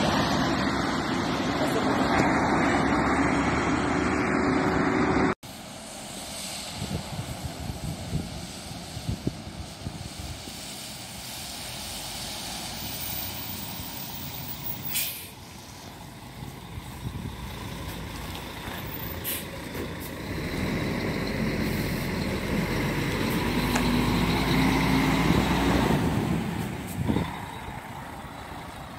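Road vehicle noise that cuts off abruptly about five seconds in. Then a diesel coach bus runs as it drives up and pulls in, its engine growing louder toward the end, with a short sharp hiss like an air brake near the end.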